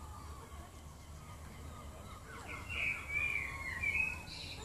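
Bird calls: a run of high, wavering cries starting about two and a half seconds in and lasting about two seconds.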